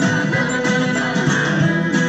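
Music playing from a vinyl record on a turntable: steady guitar-led song with strummed guitar.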